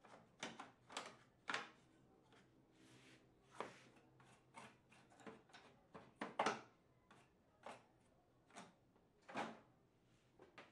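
Irregular light clicks and knocks, a dozen or so, from hands handling the parts of an opened Epson T60 printer, with a short scraping rustle about three seconds in.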